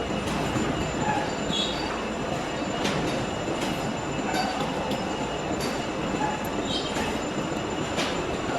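Metal lathe running with the cutting tool on a steel workpiece: a steady grinding noise with brief high squeaks and scattered sharp clicks.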